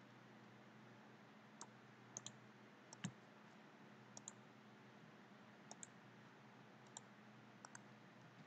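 Computer mouse clicking about eight times, several of them in quick double-click pairs, over a faint steady electrical hum.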